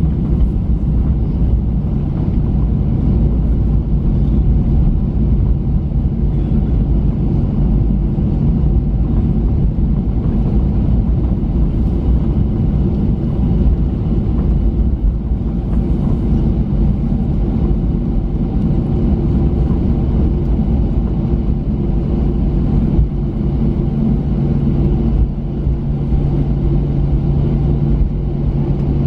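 Steady low rumble inside the cabin of a Boeing 737-900 taxiing after landing: its CFM56-7B engines running at idle with a steady low hum, mixed with the rumble of the landing gear rolling over the taxiway.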